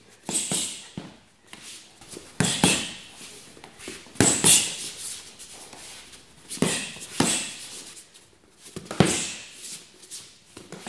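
Boxing gloves striking focus mitts, each punch a sharp slap, thrown in short combinations of one to three about every couple of seconds.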